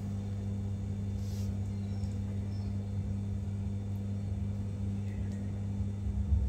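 A steady low hum runs throughout, with faint rustles of a puff-pastry sheet being folded and pressed by hand.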